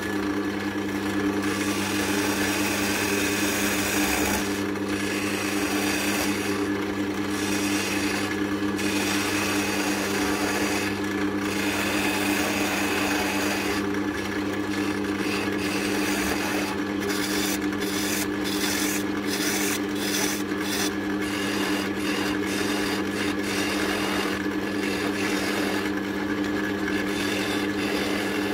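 Wood lathe running with a steady motor hum while a hand-held turning chisel cuts a spinning oak handle blank: a continuous scraping cut of steel on wood, broken by brief gaps where the tool lifts off. In the second half the cuts come as a run of quick short strokes.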